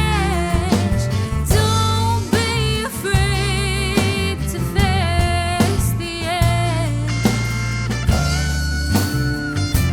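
A rock song played by a band: an electric guitar plays a lead solo with wavering vibrato and long held notes over steady bass and drums.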